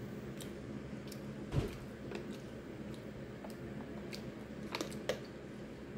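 Scattered small clicks and crinkles of hands handling a paper napkin and a plastic water bottle, with a dull thump about a second and a half in and two sharper ticks near the end. A steady low hum runs underneath.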